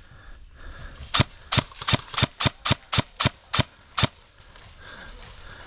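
Airsoft rifle firing a quick string of about ten single shots, roughly three a second, starting about a second in and stopping at about four seconds.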